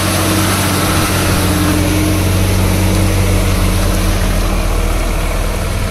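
Diesel engine of a loaded Tata truck running with a steady low drone as the truck drives slowly past close by, pulling up the incline.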